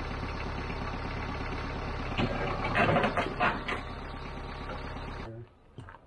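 An engine idling steadily, with a few metallic clanks and scrapes about two to three and a half seconds in; the engine sound drops away suddenly near the end.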